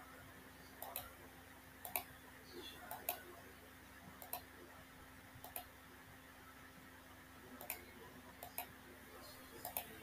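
Computer mouse button clicks, scattered irregularly and often in quick pairs, over a faint steady hum.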